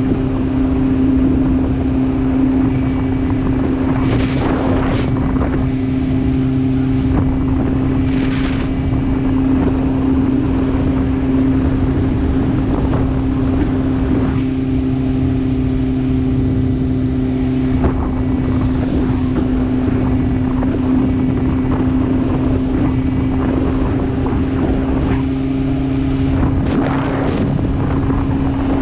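Engine running at a steady, unchanging pitch, with wind noise on the microphone and a few short rushing swells.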